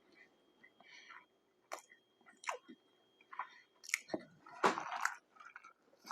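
Close-miked chewing and eating of fast food: irregular moist mouth clicks and bites, loudest a little past halfway.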